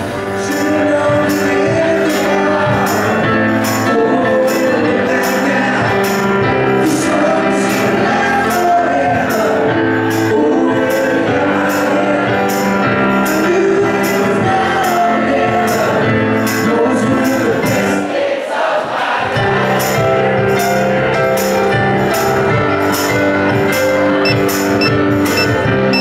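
Live piano-bar performance: a grand piano played while a man sings into a microphone, over a steady beat.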